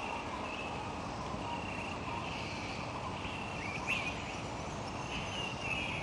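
Forest ambience of birds calling over a steady hiss: short chirps repeating about once a second, with a quick swooping call about four seconds in.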